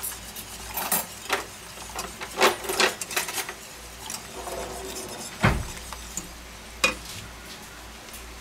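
Wire whisk stirring a cream sauce in a stainless steel pot, its wires clinking and scraping against the pot in a quick run of strokes, then a heavier knock past the middle and one more clink later on.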